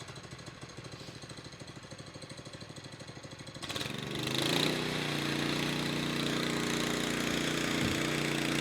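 Power trowel engine running: at first a quieter, fast, even pulsing, then from about four seconds in a louder, steady engine run.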